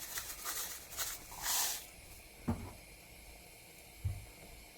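Salt shaken into a cooking pot in short hissing strokes, ending in a longer hiss about a second and a half in, then two soft knocks.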